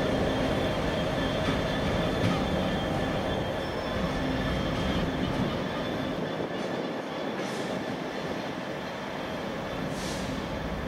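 Train moving slowly through a station, its wheels squealing on the rails in thin steady high tones over a rumble. The rumble eases off in the second half.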